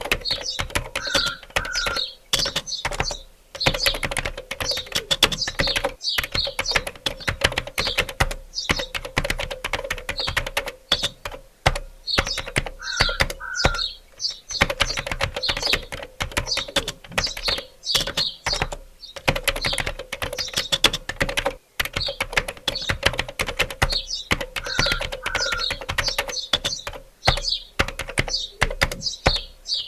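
Fast, continuous typing on a computer keyboard, a dense run of key clicks with short pauses, over a steady faint tone.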